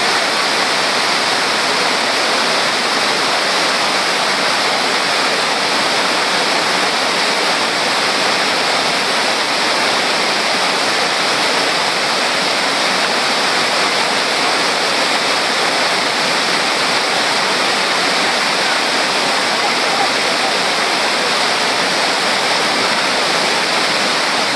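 A waterfall's water pouring over rock and churning into white foam close by: a steady, loud rush of water.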